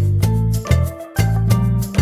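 Background music with a steady beat and bass notes about twice a second.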